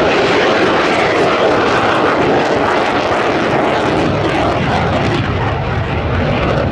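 F-16 Fighting Falcon's single jet engine rushing steadily as the fighter flies a low, slow pass. The sound shifts lower near the end as the jet moves away.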